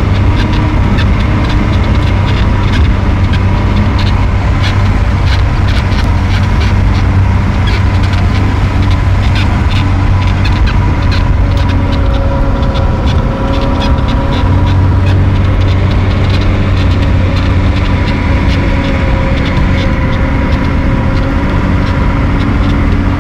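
Motor vehicle engine running steadily, loud and close, with a constant low hum.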